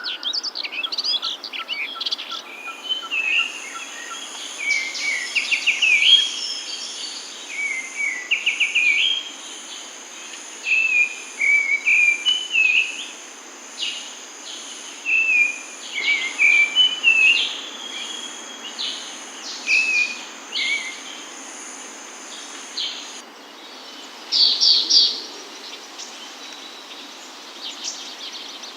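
Birds singing in short, repeated chirping phrases every second or two. A steady high-pitched buzz runs under much of it and cuts off suddenly about 23 seconds in.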